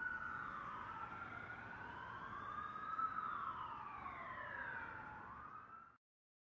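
Sirens wailing: several tones slowly rising and falling and overlapping each other, cutting off suddenly near the end.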